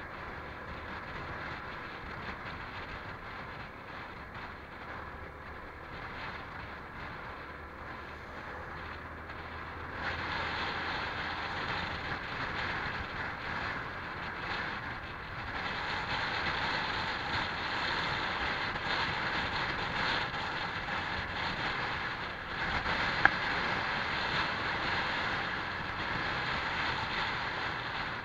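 Honda PCX scooter on the move: engine and wind rushing over the microphone in a steady noise that gets louder about ten seconds in and again about halfway through. A single sharp click stands out late on.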